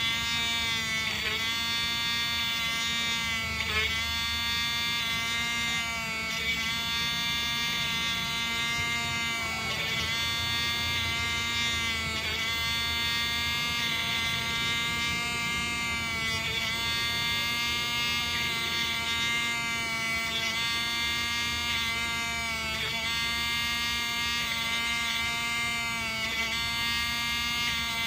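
Small handheld rotary tool whining steadily as its bit drills small holes into a PVC pipe end cap. The pitch dips briefly every second or two as the bit is pressed into the plastic.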